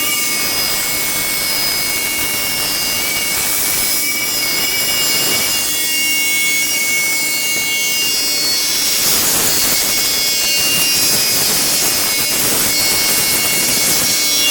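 5-axis CNC router spindle milling wood: a steady high-pitched whine over continuous cutting noise, which grows louder and rougher for a few seconds past the middle.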